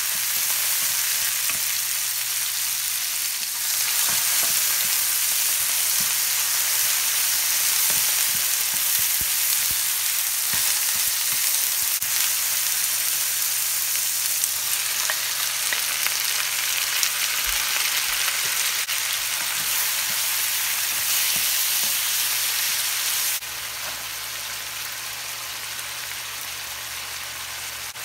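Oil sizzling in an aluminium frying pan as chopped onion and tomato sauté, stirred with a wooden spatula that clacks against the pan now and then. About 23 seconds in the sizzle drops suddenly to a softer level.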